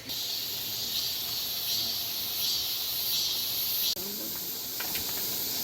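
Cicadas buzzing in a high-pitched drone that swells and eases in slow waves, broken by a sudden cut about four seconds in; faint voices follow the cut.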